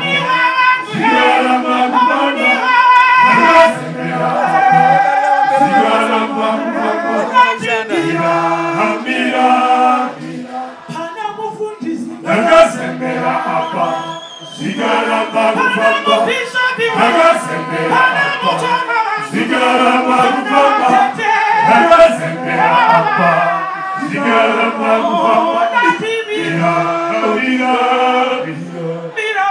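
A woman lead singer and a male choir singing a cappella, with no instruments. The singing eases to a quieter stretch about ten seconds in, then comes back to full voice.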